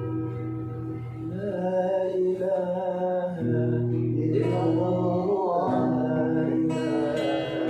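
Acoustic guitar accompaniment with a singer coming in about a second and a half in, holding long, wavering, ornamented notes of a sholawat-style devotional melody.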